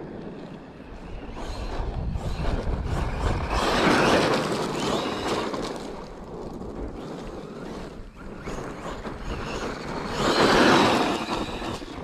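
Traxxas E-Revo 2.0 brushless electric RC monster truck driving on loose sand and gravel: motor whine and tyre noise, swelling loudly twice, about four seconds in and again near the end.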